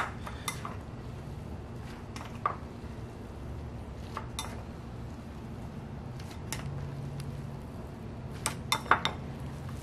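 Chopsticks clinking against a ceramic bowl while stirring egg into cooked instant ramen noodles: scattered single taps, with a quick run of three near the end.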